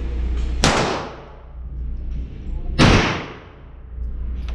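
Two rifle shots about two seconds apart in an indoor shooting range, each a sharp crack with a short echoing tail, over a steady low hum.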